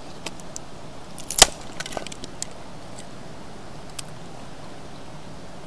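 Batoning firewood: a knife blade is struck through a piece of split wood, one sharp loud knock about a second and a half in, then a few small clicks and cracks, and a lighter knock about four seconds in. A river's steady rush runs underneath.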